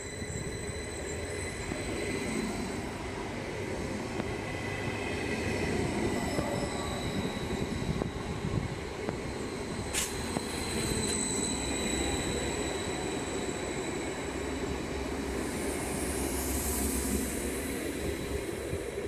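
Electric multiple-unit train, a Stadler Flirt, rolling along the platform track with a low rumble and steady high-pitched whining tones. There is a single sharp click about ten seconds in, and a high hiss swells near the end as it moves off.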